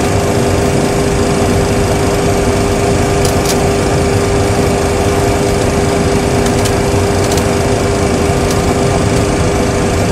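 Steady cockpit hum of a Boeing 737 Classic full flight simulator with its engines at idle, holding short of the runway: a rough, even drone with a constant mid-pitched tone. A few faint clicks come through it.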